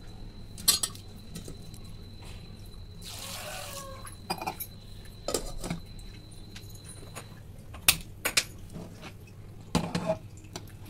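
Stainless steel pot and utensil clinking and knocking, with water sloshing, as cut bitter gourd pieces are handled in water in the pot. Sharp clinks come about a second in and again near eight and ten seconds, with a short rush of water about three seconds in.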